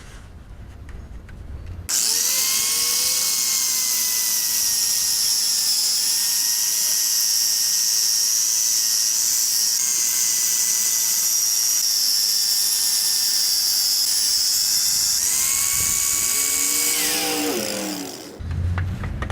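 Handheld electric power tool scouring the rusty steel exhaust pipe clean around a hole torn by a hanger bracket: a steady motor whine with a bright, hissing scrape of metal being abraded. It starts abruptly about two seconds in, dips slightly in pitch under load, and winds down with a falling whine near the end.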